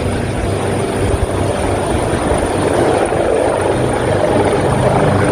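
Helicopter running steadily: a constant din of rotor and engine.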